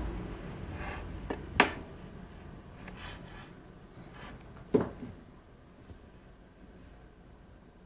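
Handling noise of hands working with solder wire and a soldering iron on a benchtop: two sharp knocks, about one and a half seconds and five seconds in, with faint rubbing between them.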